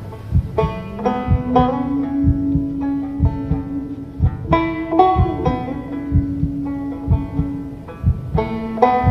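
Slow banjo music: plucked notes ringing out one by one, with a held low note underneath that shifts pitch a few times.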